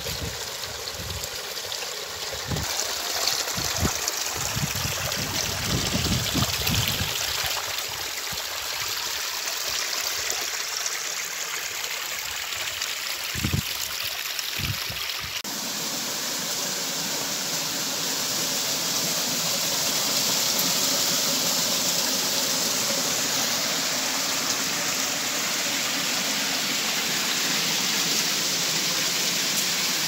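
Small forest stream running over mossy rocks and little cascades, a steady rushing and trickling of water. Scattered low thumps come in the first half. About halfway through, the sound changes abruptly to a brighter, steadier rush.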